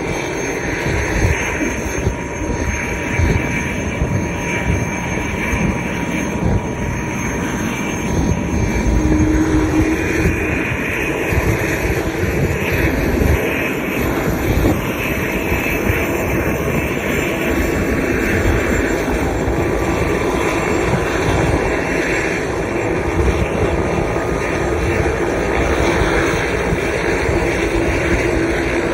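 AS350 Squirrel helicopter running on the ground, its turbine engine and main rotor making a steady heavy rumble. A faint high turbine whine rises slowly in pitch through the middle.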